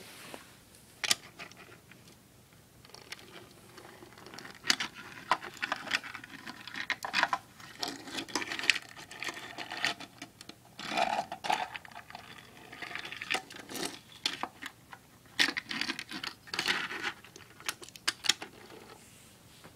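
Small die-cast toy car pushed by hand across a plastic toy garage playset: irregular clicks, knocks and short rattling scrapes of metal wheels and body on plastic.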